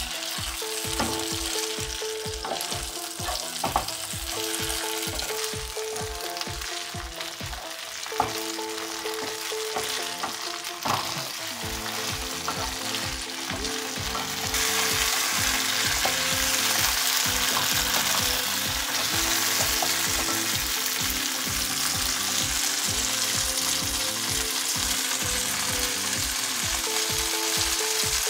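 Whole ripe red chillies and garlic sizzling in hot oil in a nonstick frying pan, with a few sharp taps of the spatula in the first half. The sizzle grows louder about halfway through.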